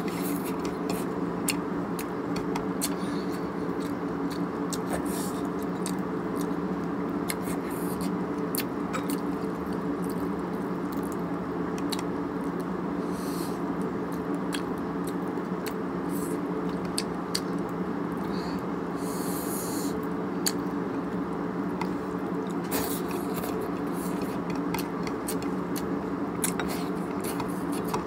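Eating crab by hand: chewing, with crab shell cracking and crackling in many short clicks, over a steady low hum.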